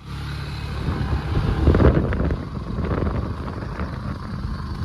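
A motor vehicle's engine running steadily as it drives along a rough dirt road, with a louder rumble swelling about two seconds in.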